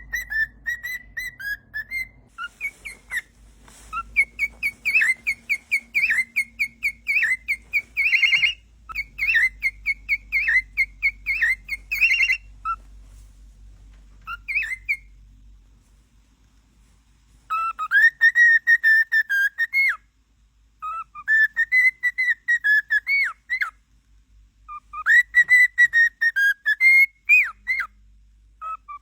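Pet cockatiel whistling in quick runs of short, high chirpy notes, broken into separate phrases with short pauses between.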